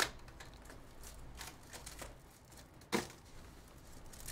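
Plastic wrapping crinkling and tearing as a sealed box of baseball cards is unwrapped by hand: scattered soft crackles, with a sharp crack at the start and the loudest one about three seconds in.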